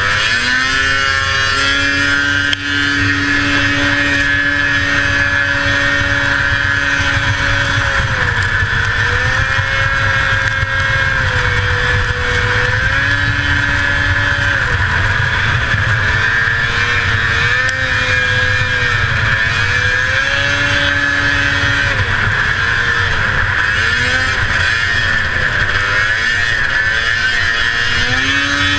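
A 1981 Arctic Cat El Tigre 6000's 500cc two-stroke engine running hard at racing speed. Its pitch dips and climbs again several times as the revs fall and rise. A steady high whine runs with it.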